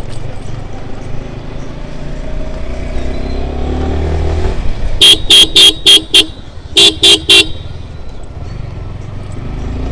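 Kawasaki ZX-10R's stock inline-four engine pulling with rising revs, then a horn blown in short toots, five quick ones followed by three more; the toots are the loudest sound.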